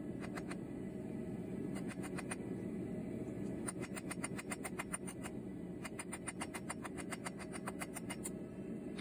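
Hand hammer striking a thin steel rod on an anvil face in quick light blows, about six a second, in several runs with short pauses, forging the point of a cloak pin. A steady low rumble runs underneath.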